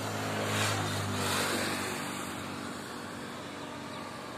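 A motorcycle passing on the road, its engine and tyre noise swelling to loudest about a second in and then fading, over a steady low hum.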